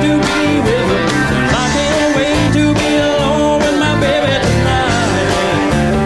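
Country-rock song: a man singing over guitar, bass and drums.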